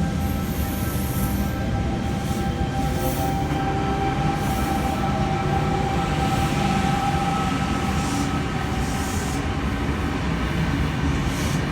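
V-set intercity electric train running at the platform: a steady, loud rumble with a faint steady whine and brief hissing swishes.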